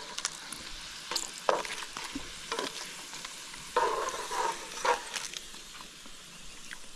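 Tortillas frying in leftover fish lard: a steady sizzle with scattered pops and crackles, and a short burst of louder crackling a little under four seconds in.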